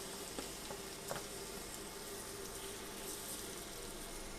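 Root vegetables sizzling steadily in foaming butter in a frying pan, with a few faint clicks.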